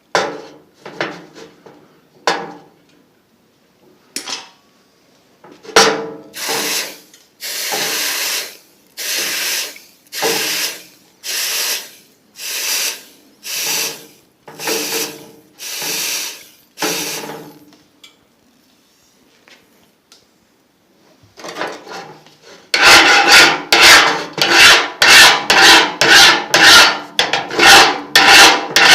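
Rasping strokes of a hand tool being worked back and forth over steel: a few short scrapes, then about a dozen slow, long strokes roughly one a second, a pause, and fast scrubbing strokes about three a second near the end.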